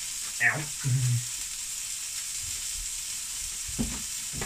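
Duck breast sizzling steadily in a frying pan. Brief clatters of kitchenware break in, the loudest about half a second in, then a couple of knocks near the end as a saucepan of rice is stirred with a wooden spoon.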